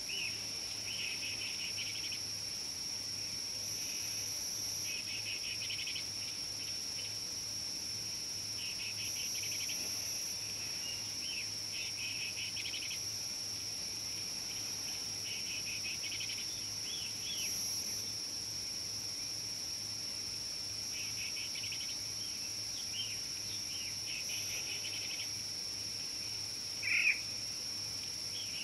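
Steady, high-pitched insect drone, with small birds chirping in quick bursts every few seconds and one louder bird call near the end.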